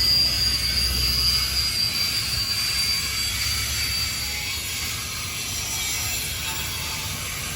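Intermodal freight train's cars rolling past on the rails, with a steady high wheel squeal. The low rumble dies away about two seconds in, and the squeal fades out a couple of seconds later.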